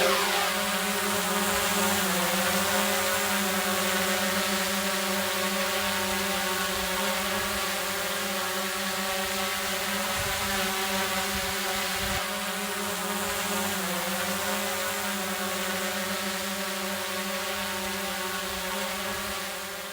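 A small motor's steady pitched buzz. Its pitch dips briefly about two seconds in and again about fourteen seconds in, and it fades near the end.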